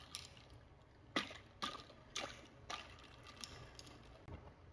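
Iced coffee drink in a glass being handled: a run of short knocks and sloshes of liquid and ice, about one every half second, fading to a few weaker ones.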